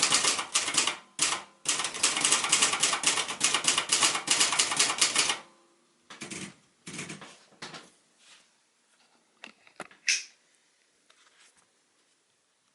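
Silver-Reed Silverette portable typewriter being typed quickly, a steady rapid clatter of type bars striking, with two brief pauses. After about five seconds the typing stops, leaving a few scattered mechanical clicks and rattles from the machine.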